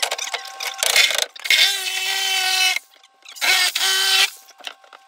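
A handheld power cutting tool runs in short bursts as it cuts into the old fiberglass shower, with two longer runs of about a second each in the middle.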